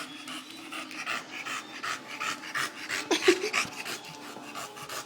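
Dog panting rapidly and steadily, about three breaths a second.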